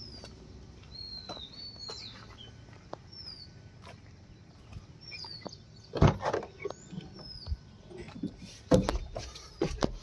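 Small birds chirping with short, falling calls, and several knocks and thumps about six seconds in and again near nine seconds, as a person climbs into a truck cab.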